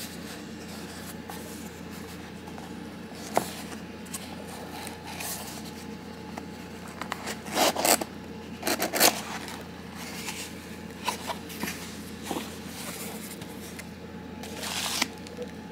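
Hands handling and pulling open a small cardboard shipping box: scraping and rustling of cardboard, with two louder ripping pulls about halfway through and another near the end.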